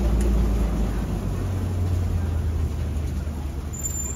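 Safari ride truck running as it drives along, a steady low engine hum whose pitch steps up about a second in.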